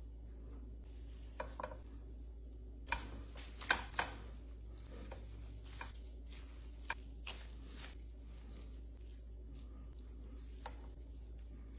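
A few sharp knocks of ceramic plates set down on a wooden board in the first four seconds, then a few soft clicks and handling noises as gloved hands press raw ground chorizo and bacon, over a low steady hum.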